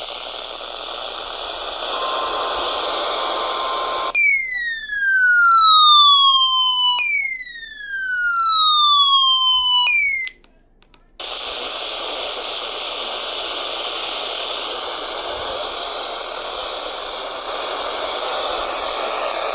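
Radio receiver static hiss, with a faint steady tone a couple of seconds in. About four seconds in the hiss gives way to two loud falling electronic whistles, each about three seconds long, and a third that is cut short. After about a second of silence the static returns.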